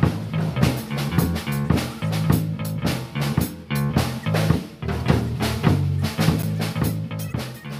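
Background music with a steady drum beat, electric guitar and bass.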